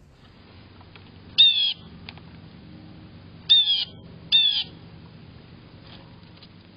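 Blue jay calling three times: loud, harsh calls with a slightly falling pitch, the first on its own and the last two close together.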